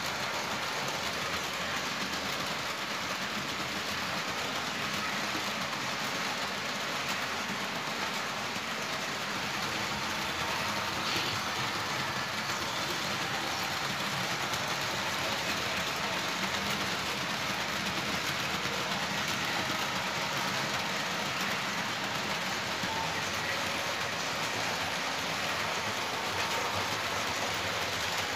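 Vintage Märklin HO model trains running on metal track: a steady, even running noise of the small electric locomotive motors and the metal wheels rolling over the rails.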